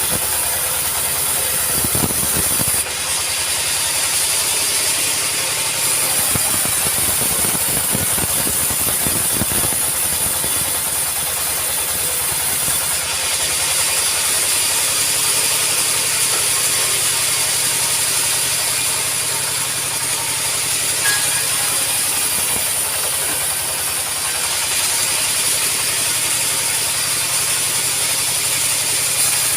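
Sawmill running on acacia wood: a loud, steady machine noise with a high hiss, and a run of knocks a few seconds in.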